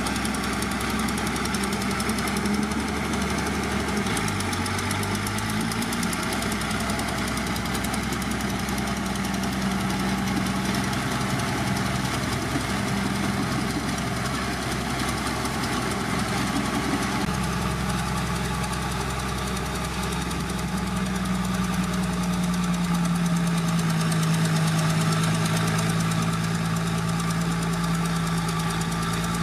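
Heavy diesel engine of earthmoving machinery running steadily, its engine speed shifting a few times.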